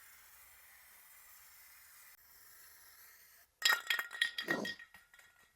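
Aerosol spray-paint can hissing faintly as it sprays, stopping about three and a half seconds in, then a second or so of rapid, ringing metallic clinks and rattles from the can being handled and shaken, its mixing ball rattling inside.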